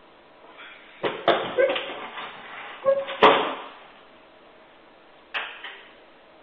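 Lever door handle and door being worked by a Doberman with its mouth: a cluster of sharp knocks and clicks, loudest about three seconds in, then one more click a couple of seconds later as the latch gives and the door swings open.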